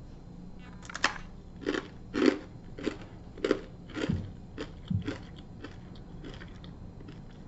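A crisp Raincoast Crisps pumpkin spice cracker, packed with seeds, nuts and dried fruit, bitten with a sharp crack about a second in, then crunched while chewing at about two crunches a second, growing fainter near the end. The crispness is the sign that the crackers are fresh and have not yet gone chewy.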